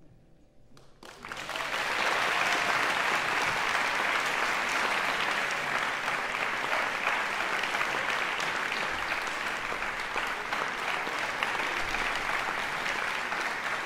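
The last chord of piano and guzheng dies away, and about a second in audience applause breaks out and holds steady.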